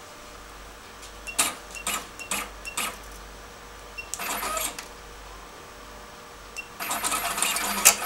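An automatic wire cutting and stripping machine: a few clicks and short faint beeps from its keypad as buttons are pressed, then the machine running in two short mechanical bursts, about four seconds in and again near the end, as it feeds, cuts and strips wire.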